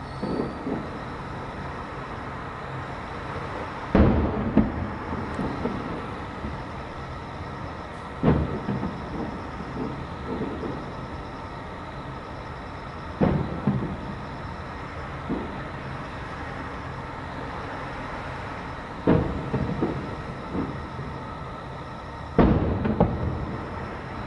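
Distant aerial firework shells bursting: a sharp boom every four to six seconds, six in all, each followed by a rolling echo. A steady low hum lies underneath.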